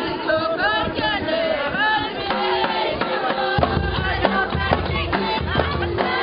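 Group of voices singing a chant with gliding pitches. About three and a half seconds in, percussion joins with a deep low beat and sharp strikes, in traditional folk music.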